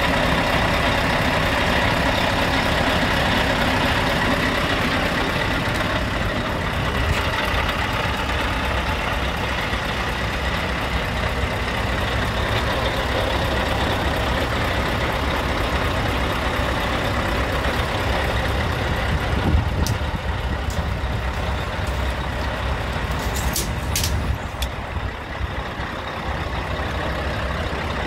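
Diesel engine of a Scania R tractor unit idling steadily, with a few short sharp clicks about two-thirds of the way through.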